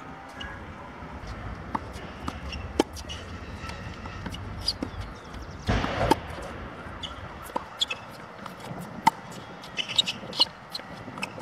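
Tennis rally on a hard court: tennis balls struck by racket strings and bouncing off the court, heard as a string of sharp pops. The loudest one comes just before the middle, when the near player hits the ball.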